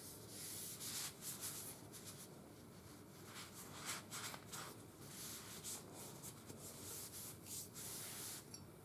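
A cloth rag rubbing along a Mossberg 590 Shockwave shotgun barrel in quick, irregular wiping strokes, a faint soft swishing, as the Ballistol and loosened surface rust are wiped off after brushing.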